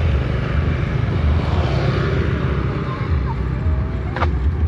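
Motorcycles passing on a narrow road, over a steady low rumble, with one sharp knock about four seconds in.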